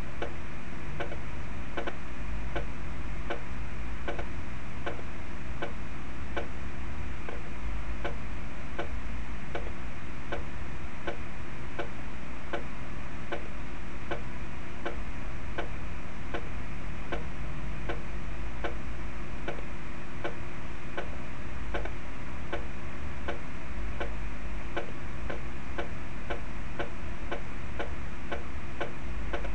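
Computer score playback of snare-drum stick-control exercises: a steady run of evenly spaced, sharp ticks, over a steady low hum.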